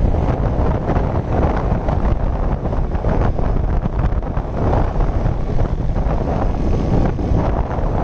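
Steady rush of wind on the microphone of a moving motorcycle, with the bike running underneath.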